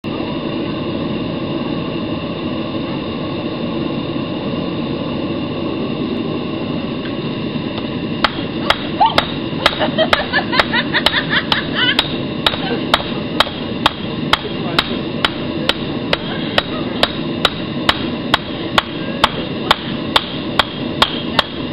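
A forge running with a steady noise, and from about eight seconds in a hammer striking a hot steel billet on an anvil, about two to three blows a second, with a quicker flurry of strikes near the middle: forge welding, the blows setting the weld in the billet.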